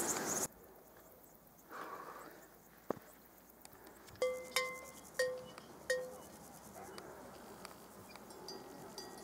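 Four clanking rings of a cattle bell within about two seconds, starting about four seconds in, over a faint buzz of insects in the grass.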